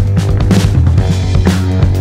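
A three-piece band playing: drum kit hits over a held low bass guitar note, with electric guitar.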